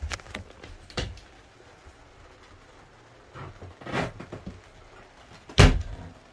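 A few scattered knocks and clunks, the loudest about five and a half seconds in.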